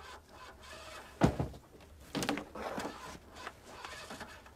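A caravan door being handled: a sharp knock about a second in, a second knock a second later, and light rattling in between.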